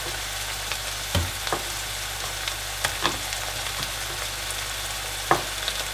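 Onion, peppers, tomato paste and halved cherry tomatoes sizzling steadily in butter and oil in a frying pan, with a handful of short sharp knocks from a knife cutting tomatoes on a plastic cutting board.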